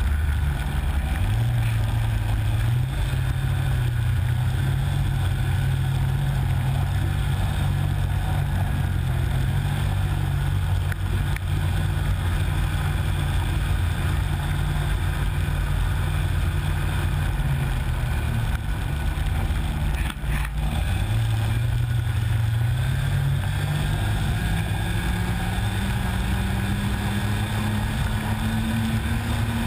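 Snowmobile engine running steadily under way, with a brief dip about twenty seconds in; after that its revs climb steadily, the pitch rising toward the end.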